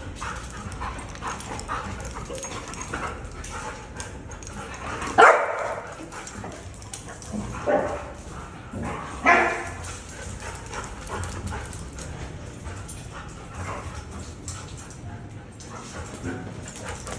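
Two dogs, a husky and a small dog, play-fighting, with three sharp barks about five, seven and a half, and nine seconds in. The first bark is the loudest.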